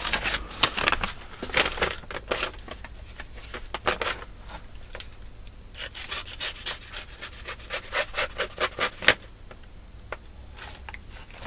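Sharp fixed-blade knife slicing through paper: a series of short cutting and rustling strokes, coming a few a second around the middle.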